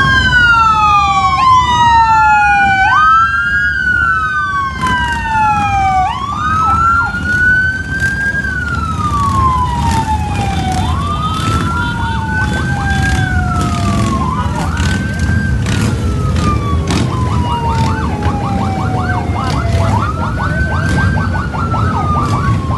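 Two or more emergency-vehicle sirens wailing and overlapping, each rising quickly and then falling slowly, over the low rumble of a long column of motorcycles. About two-thirds of the way through, one siren briefly switches to a fast warble.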